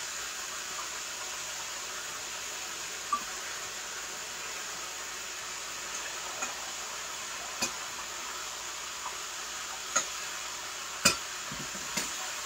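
Chicken wings frying in a pan of hot oil: a steady sizzle, with a handful of sharp clinks and knocks of a utensil against the pan, the loudest near the end.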